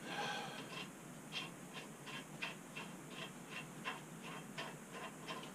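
Ratchet wrench clicking, about three or four clicks a second, as a bolt is turned out.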